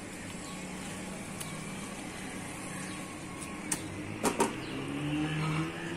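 Silicone spatula stirring a thick onion-tomato and egg masala in a nonstick frying pan, with a few light knocks against the pan about four seconds in, over a steady background hum.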